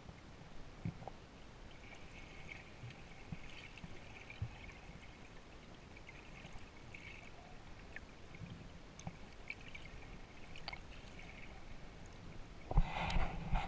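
Muffled underwater sound of snorkeling, a faint low hiss with scattered small clicks and bubble ticks. Near the end it gives way to loud splashing as the camera comes up through the surface.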